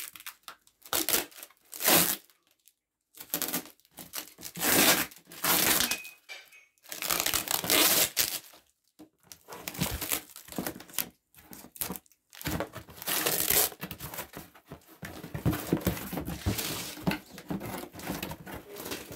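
Plastic packing tape being ripped off a cardboard parcel box in a series of tearing pulls, with the cardboard flaps rustling and crinkling as the box is opened. The longest stretch of tearing and rustling comes in the second half.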